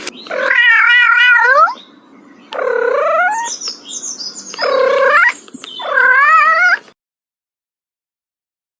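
Domestic cat yowling: four drawn-out, wavering meows, the first with a quivering pitch.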